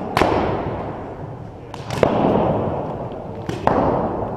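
Three sharp single shots from a paintball marker, about 1.8 s apart, each echoing for about a second in a large hall.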